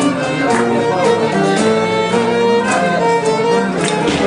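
Live acoustic string ensemble playing a traditional Asia Minor Greek folk tune, a bowed melody line stepping from note to note over sustained lower notes.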